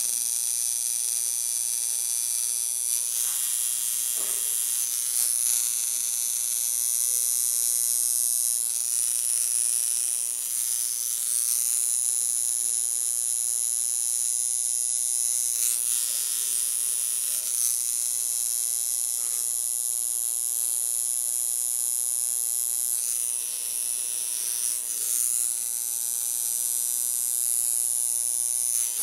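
Tattoo machine running with a steady high buzz as its needle works fine dark lines into the skin of a forearm tattoo.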